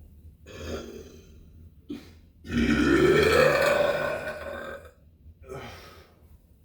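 A long, loud burp lasting about two seconds, its pitch rising and then falling. Shorter, softer sounds come before and after it.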